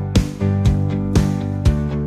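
Music with a steady beat of about two strikes a second over held notes.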